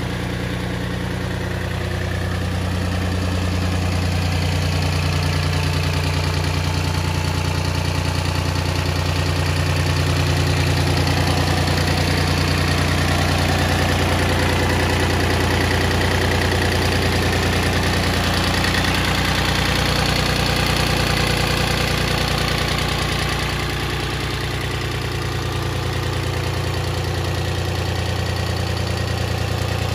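Iseki 155 compact tractor's three-cylinder diesel engine idling steadily, a little louder through the middle stretch.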